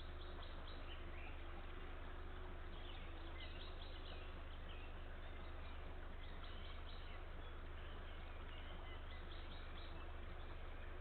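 Small birds chirping and singing in short, frequent phrases over a steady hiss and a low hum.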